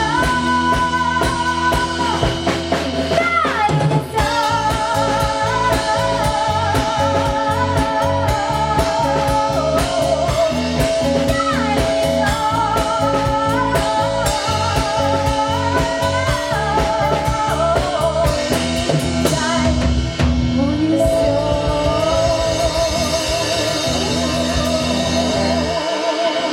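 Live rock band playing a song: sung vocals over drum kit, bass and guitar with a steady beat. The low end drops away near the end as the song finishes.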